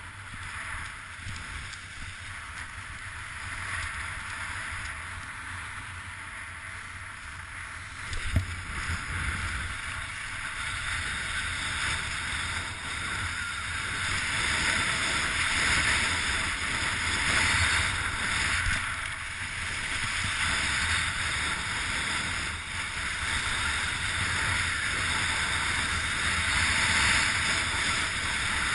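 Strong wind rushing and buffeting the microphone, growing louder from about halfway through, with one sharp knock about eight seconds in.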